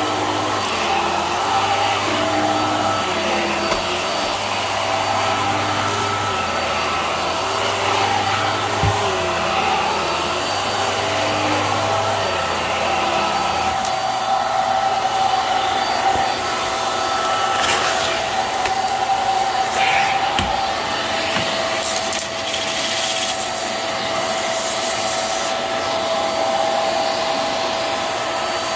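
Hart stick vacuum running steadily with a constant motor whine as its floor head is pushed back and forth over carpet, the sound shifting every second or two with each stroke for the first half. A few short clicks and rattles in the second half.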